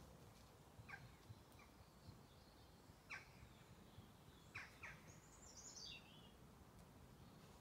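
Faint birdsong: a few short, sharp down-slurred call notes and, about five seconds in, a brief high warbled phrase falling in pitch, over a quiet rural background.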